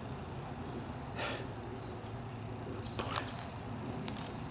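Small birds chirping in the background: a thin high whistle that dips slightly at the start, then a few short high chirps about three seconds in, over steady outdoor hum.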